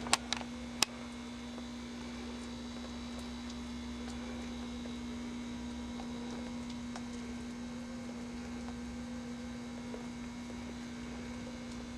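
Steady low electrical hum, with a few sharp clicks in the first second.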